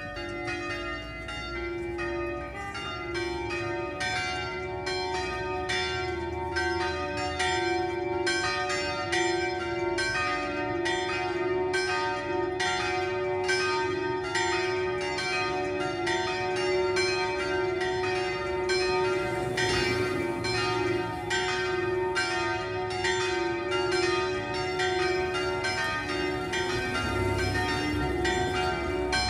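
Three small church bells, the smallest of a six-bell peal, swung full-circle together (rung 'a distesa'), their strikes overlapping in a continuous jangling peal that grows louder over the first few seconds. It is the second call to a 6 pm weekday Mass.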